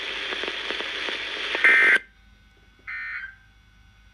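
Weather radio hiss with faint crackle after the voice message ends, then two short bursts of shrill two-pitch digital data tones, the EAS/SAME end-of-message code, a little over a second apart. The first burst, about one and a half seconds in, cuts the hiss off to a faint hum.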